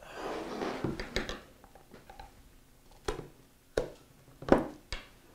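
Flathead screwdriver tip clicking and tapping against the metal casing of a Quantum Bigfoot hard drive while it is worked at the drive's edge: about five sharp, separate ticks spread over a few seconds. Soft rustling comes before them in the first second.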